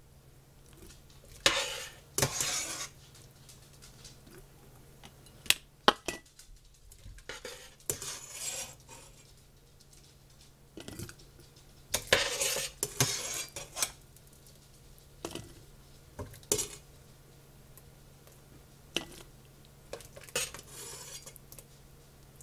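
A serving utensil scraping in a pot and knocking against glass mason jars and a plastic canning funnel as beef tips and gravy are spooned into quart jars: scattered sharp clicks between several longer scraping stretches.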